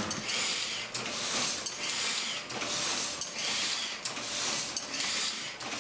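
Letterpress printing press running, with a regular mechanical cycle of a click and a hissing whoosh about once every 0.8 seconds.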